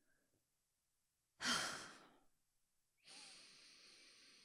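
A woman's breathy sigh about a second and a half in, fading away, then a longer, quieter breath near the end: a relieved sigh as she settles into a long-awaited hug.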